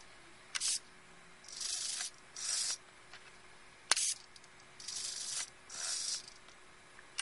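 Small R/C hobby servos whirring in about five short bursts as they swing their arms to new throttle positions. There is a sharp click about four seconds in.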